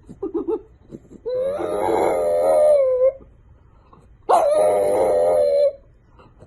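A dog howling: two long, wavering howls after a brief whimpery sound at the start.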